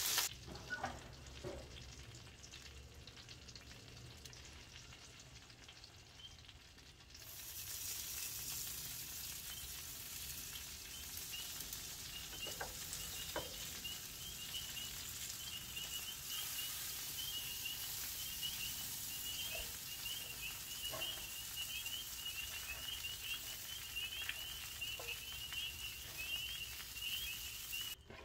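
Chicken wings sizzling on a gas grill's grate, a steady hiss that grows louder about seven seconds in, with a few light clicks of metal tongs as the wings are turned.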